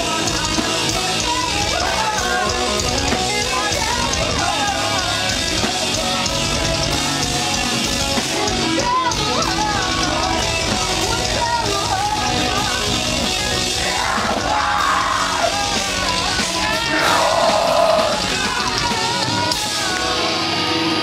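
A live electro-hardcore band playing loud: electric guitar, synthesizer keyboard and drums, with yelled vocals over the top.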